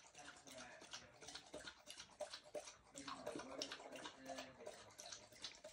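Faint, irregular lapping and splashing of a dog drinking water from a metal bowl.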